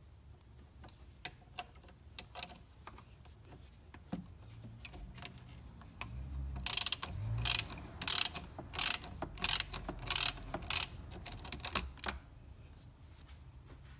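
Socket ratchet clicking as it loosens a car battery's positive terminal nut: faint ticks at first, then from about halfway through a run of loud ratcheting strokes, roughly two a second, for about four seconds, before dropping back to faint ticks.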